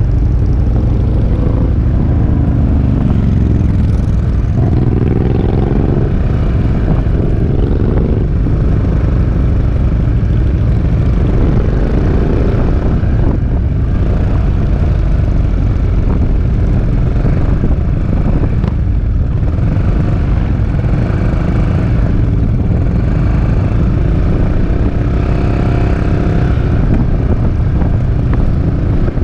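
Peugeot Métropolis three-wheeled scooter under way, its single-cylinder engine note rising and falling several times as the speed changes, under a heavy low rumble of wind on the microphone.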